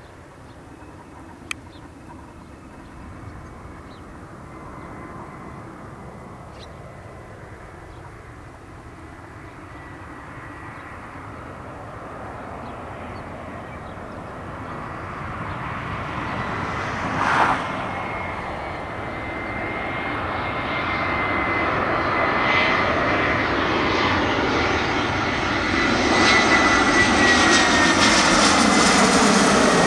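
Airbus A319's CFM56 turbofan engines on landing approach, growing steadily louder as the jet comes in low. A high engine whine runs over the rumble and bends slightly down in pitch near the end. There is a brief rush of noise about seventeen seconds in.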